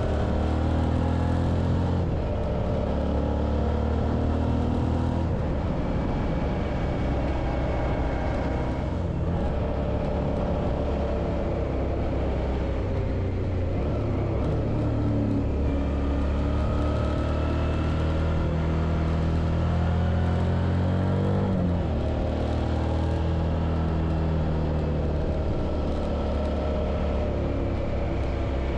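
Suzuki V-Strom 650's V-twin engine running under way, its note rising and falling with the throttle: it climbs about halfway through and drops back a few seconds later.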